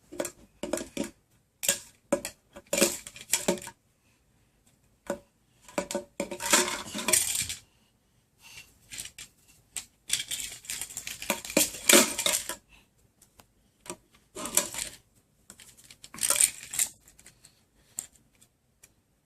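Irregular bursts of clattering and rattling, small hard objects knocking together, with short quiet gaps between them.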